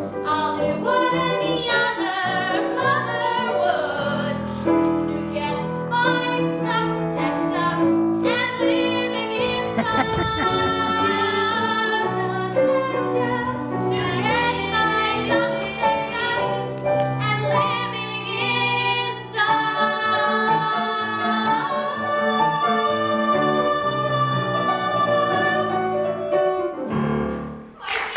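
Musical-theatre song: female voices and a chorus singing over instrumental accompaniment, breaking off near the end.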